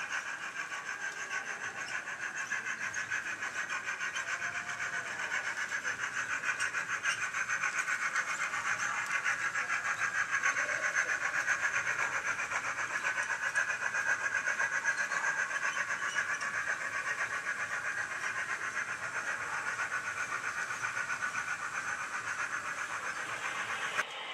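HO scale model steam locomotive pulling a long train of coal hopper cars: a steady, fast, even clatter as the train runs.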